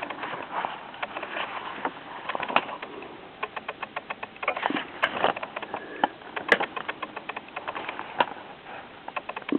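Paper rustling with many small irregular clicks and crackles as the pages of a soft-cover book are leafed through and handled.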